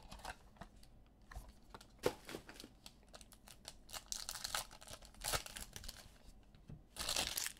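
Foil wrapper of a basketball trading-card pack being torn open and crinkled, with scattered light clicks and rustles of the cards being handled. The loudest rustling bursts come about four to five and a half seconds in and again around seven seconds.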